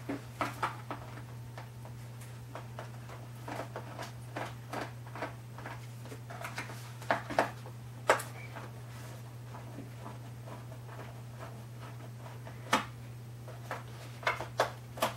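Scattered light clicks and taps of a small screwdriver and hands working the screws and parts of a foam RC model plane, with a sharper click about 8 seconds in, over a steady low hum.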